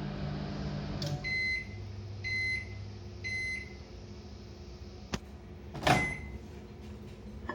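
Microwave oven running with a steady hum, then three beeps about a second apart signalling the end of the cooking time. A sharp click and a louder clatter follow near the middle.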